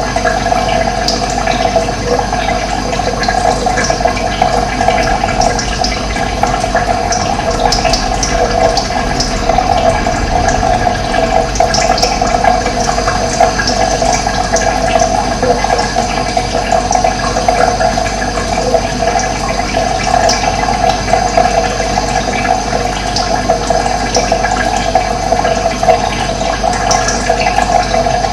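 Steady rush of running water, with short, high bird chirps scattered over it.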